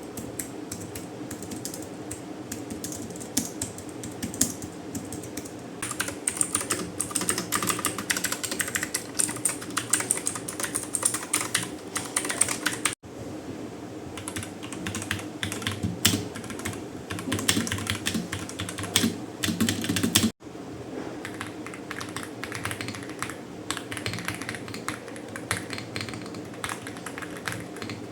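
Typing on an Aula F75 mechanical keyboard: a fast, continuous run of keystroke clicks, which breaks off for an instant twice.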